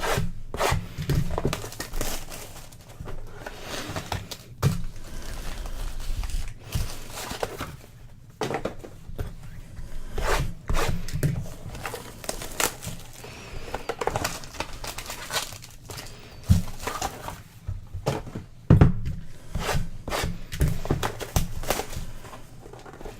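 Cardboard trading-card boxes and their wrapping being handled and opened by hand: crinkling and tearing with frequent irregular knocks and taps.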